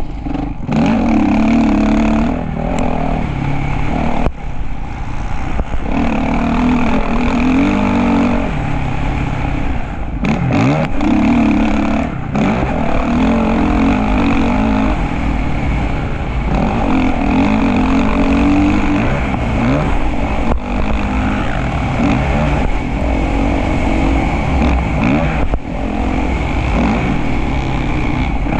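Motocross bike engine running hard and steadily, its pitch rising and falling with throttle and gear changes, dipping briefly a few times.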